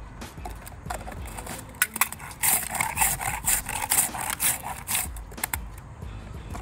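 Hand ice scraper shaving a block of ice for a shaved-ice treat: a run of rough scraping strokes, about three a second, loudest from about two and a half to five seconds in, with scattered sharp clicks around them.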